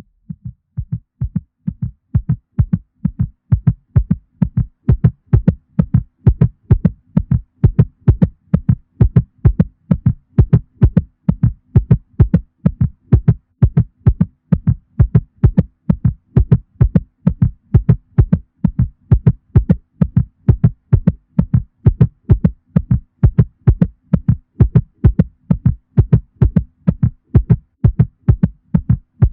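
Cat heartbeat sound effect: a steady, even rhythm of low beats over a faint low hum.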